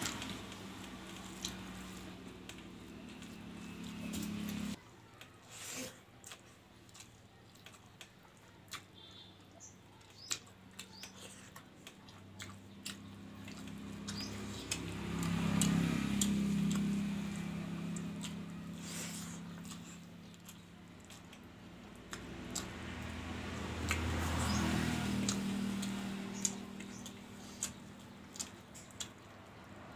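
Close-up eating sounds: wet chewing and lip smacking with many short clicks as rice and curry are eaten by hand. Underneath, a low hum swells twice.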